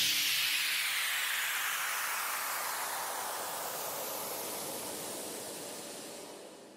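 Closing tail of an electronic background-music track: a white-noise sweep falls in pitch and fades steadily away after the beat stops, dying out near the end.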